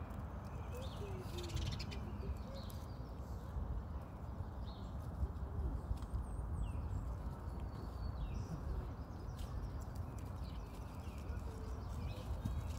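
Outdoor ambience: a steady low rumble with small birds chirping now and then, and a rock pigeon cooing softly a few times in the first couple of seconds.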